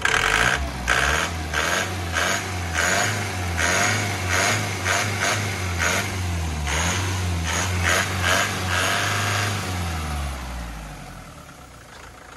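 A 3.2-litre diesel engine in a bare FAW truck chassis running on its first start, revved up loud with its pitch rising and falling repeatedly. About ten seconds in, the revs sink and the engine note dies away.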